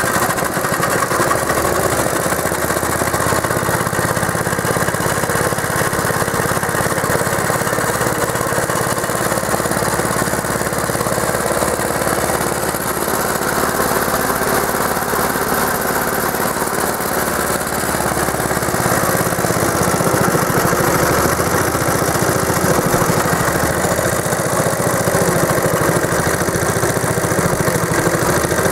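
The Clinton engine of a 1952 AirCaps Sit'n Cut riding lawnmower running steadily, getting a little louder about two-thirds of the way through.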